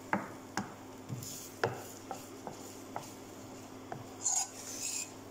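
Wooden spoon stirring and scraping through a milk-and-flour sauce in a frying pan, with irregular light knocks of the spoon against the pan.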